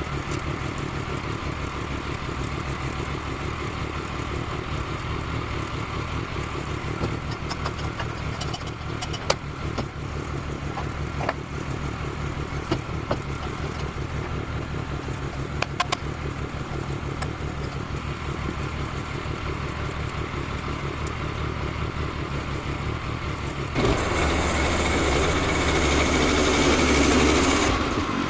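Small gas engine of a Woodland Mills HM122 portable bandsaw mill running steadily, with scattered clicks and knocks. Near the end the sound turns louder and hissier for about four seconds, then falls back.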